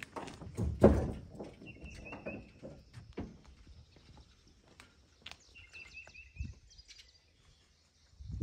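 Knocks and thumps of a kayak being moved around in a pickup truck bed, the loudest about a second in, dying away after about three seconds. A bird sings a short phrase of quick notes twice, about two seconds in and again near six seconds in.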